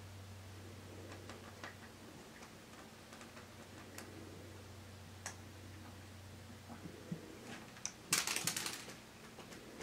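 Cat rummaging in dry kibble inside a plastic pet-food bin: scattered small clicks and crunches, with a louder burst of rattling about eight seconds in as it comes up out of the bin.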